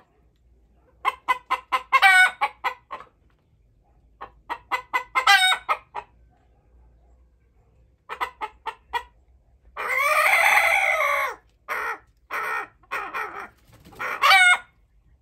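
Chickens clucking in quick runs that build into a drawn-out cackle, three times over, with scattered single clucks between. About ten seconds in there is one longer, held call of over a second.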